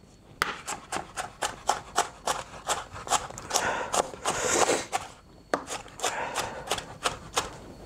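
Chef's knife chopping red onion roughly on a cutting board: a quick run of knife taps on the board, about four a second, with a short pause about five seconds in.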